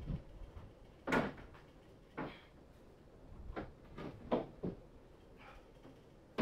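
Irregular knocks and clunks, about seven of them, loudest about a second in and at the very end: the Jeep's roof being handled during removal.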